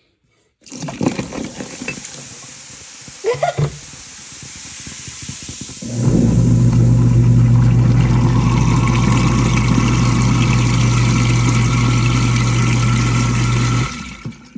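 Water running into the sink. About six seconds in, a clogged garbage disposal is switched on with a loud, steady, low motor hum, which cuts off abruptly about eight seconds later.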